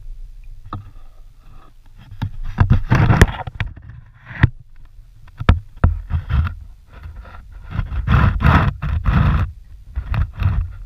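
A manatee mouthing and rubbing against the clear plastic hull of a canoe: irregular scraping and rubbing in bursts, with a few sharp knocks near the middle, carried through the hull.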